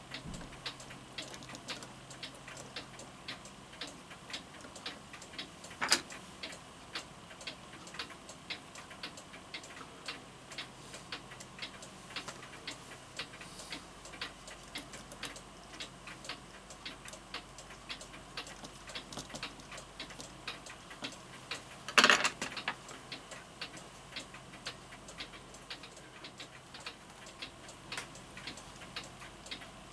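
A Florenz Kroeber mantel clock's movement ticking steadily with an even beat, a few ticks a second. Two louder knocks break in, one about six seconds in and one about twenty-two seconds in.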